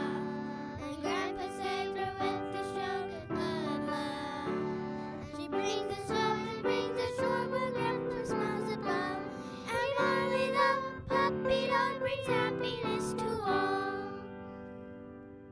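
Children's song with young voices singing over piano accompaniment, fading out near the end.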